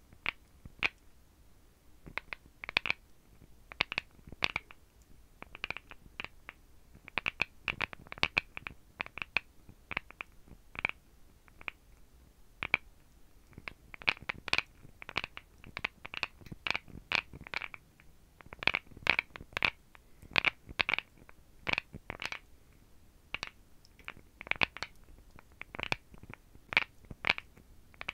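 Long fingernails tapping and clicking on a bone animal jaw and its teeth: sharp, irregular clicks in quick runs, a few a second, with short pauses between runs.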